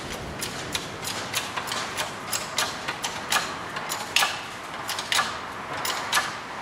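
Hand-pumped hydraulic shop press working to push a Ford Fiesta wheel bearing out of its hub carrier: a run of irregular metallic clicks and clacks, about three a second, as the press is pumped and the bearing is loaded.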